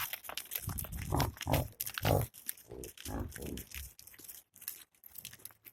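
Yaks grunting: a run of short, low grunts over the first three and a half seconds, with crackling clicks throughout.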